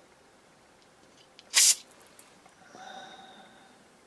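A short hissing blast of aerosol carb cleaner squirted through its red extension straw into the passages of a chainsaw carburetor, followed about a second later by a faint, brief tone.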